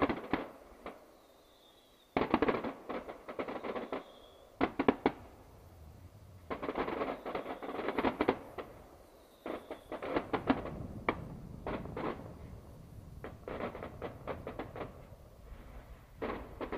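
Fireworks going off in repeated bursts of rapid crackling pops, the clusters coming every second or two with short quieter gaps between them.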